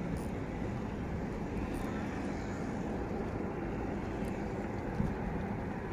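A steady low rumble outdoors, with a single short click about five seconds in.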